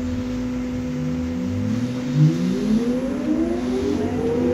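Electric drive of a MAN Lion's Classic city bus converted from diesel, heard from inside: a steady electrical hum, and from about a second in a whine that rises steadily in pitch as the bus gathers speed.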